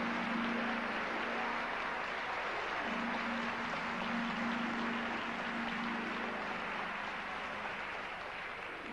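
An audience applauding steadily for an entering performer, tapering off near the end, with a steady low hum underneath.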